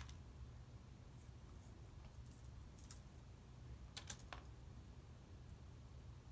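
Faint light crackles of shell being picked off a hardboiled egg by hand: a single click about three seconds in and two more just after four seconds, over a low room hum.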